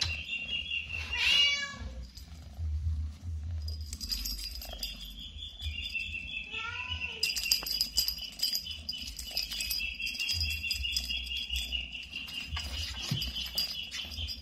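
Colour-point munchkin kitten giving two short mews while playing, one about a second in and another around seven seconds, over a steady high-pitched whine.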